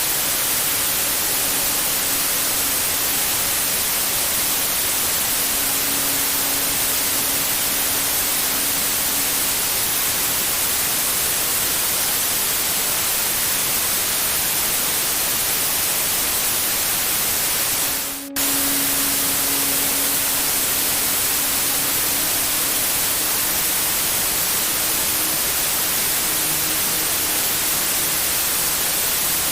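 Steady white-noise hiss, strongest in the high end, with a faint low hum under it. About 18 seconds in it fades out briefly and cuts back in abruptly.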